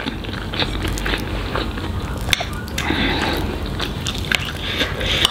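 A person chewing a mouthful of potato and cauliflower curry with rice, with many small wet mouth clicks and smacks.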